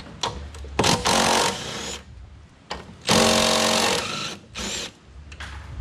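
Cordless impact driver hammering as it undoes the nuts on top of a front strut, in two runs of about a second each, one about a second in and one about three seconds in, with small clicks of the socket between.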